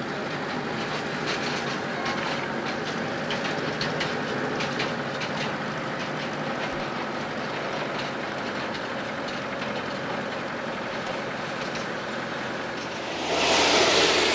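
Narrow-gauge steam train running alongside, heard from inside a moving car: a steady running noise with light clicking from the rails. Near the end a louder rushing noise comes in.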